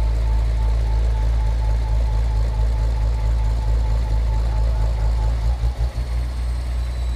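Diesel engines of truck-mounted mobile cranes running at a steady low rumble while they hold a heavy load in a two-crane lift, the rumble wavering briefly about five and a half seconds in.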